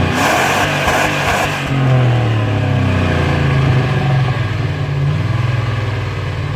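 Stock exhaust of a 2003 Jeep Grand Cherokee's 4.7 V8 running above idle, its note wavering slightly up and down. A rush of hiss sits over it for the first second and a half.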